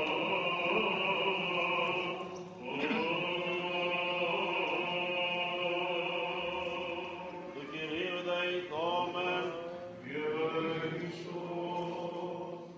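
A man sings Byzantine chant in long, held, melismatic notes that glide from pitch to pitch, over a steady low drone (the ison).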